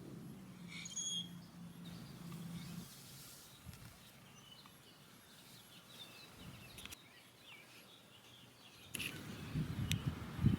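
Quiet outdoor ambience with faint, scattered bird chirps. A low rumbling noise rises near the end.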